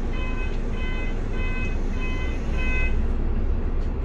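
Electronic warning beeper going off in a steady series of short beeps, about one and a half a second, stopping about three seconds in. Under it is the low rumble of the bus's engine and road noise.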